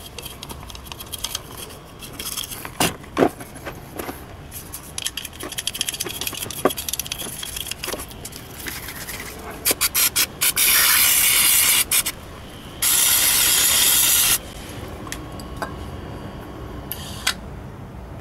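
A toothbrush scrubs and scrapes inside a throttle body's bore, then an aerosol cleaner is sprayed into it through a straw nozzle: a few short spurts about ten seconds in, then two long hissing sprays of about a second and a half each.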